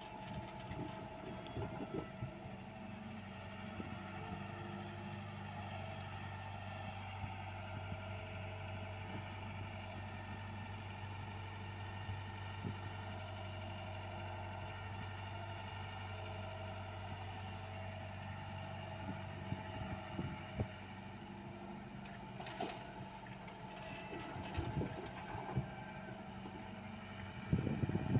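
Komatsu PC75US mini excavator's diesel engine running steadily as it digs and swings, with scattered knocks and a burst of clatter near the end as a bucket of dirt and stones drops into the dump truck's steel bed.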